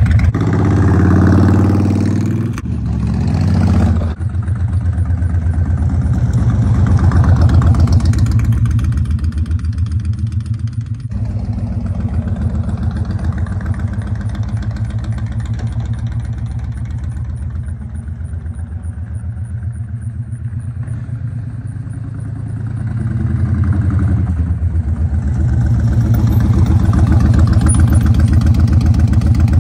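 Honda VTX1300 V-twin running through Cobra slip-on mufflers fitted with homemade lollipop inserts in place of the removed baffles, giving a deeper exhaust note. It is revved a couple of times near the start. It then runs more steadily and quieter through the middle as the bike rides off, and grows louder again near the end as it comes close.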